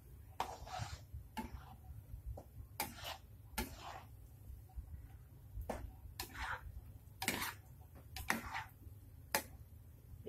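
Metal spoons scraping and stirring chili sambal paste around a non-stick wok as it is stir-fried: over a dozen short, irregular scrapes, some in quick pairs, over a low steady hum.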